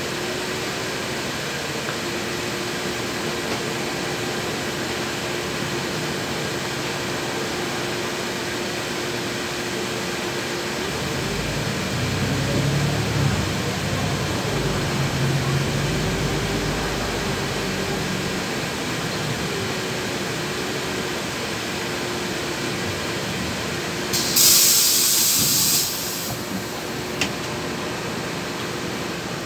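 Inside a LiAZ 6213.21 city bus under way: a steady drone from the drivetrain, with a whine whose pitch dips and rises. The engine pulls harder for several seconds about midway. Near the end comes a loud two-second hiss of compressed air from the air brakes as the bus comes to a stop.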